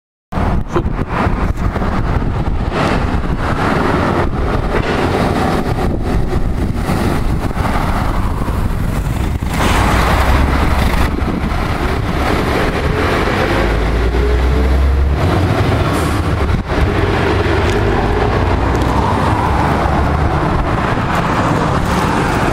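Heavy diesel truck passing close by: deep engine rumble and tyre noise from a curtain-sided lorry, loudest around the middle, mixed with general street traffic. It cuts in abruptly from silence just after the start.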